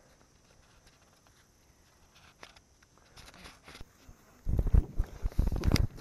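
Faint ticks and rustles, then about a second and a half of irregular heavy, dull thumps and knocks near the end, the handling and movement noise of a body-worn action camera.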